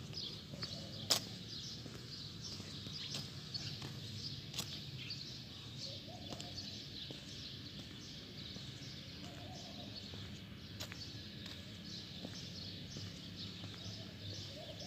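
Small birds chirping and twittering in the trees over a steady low background hum, with one sharp click about a second in.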